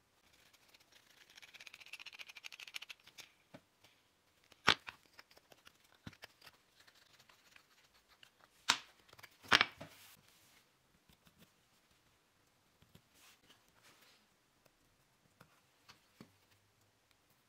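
Small wooden battens and a metal Allen key handled during assembly. A brief run of rapid fine clicking and scraping comes first, then three sharp clicks a few seconds apart.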